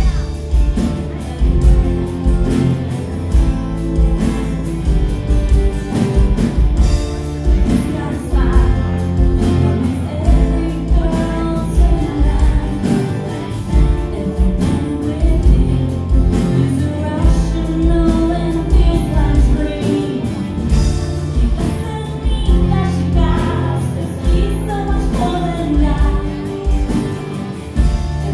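Live band music: a woman singing over strummed acoustic guitar, electric guitar, bass guitar and drums keeping a steady beat.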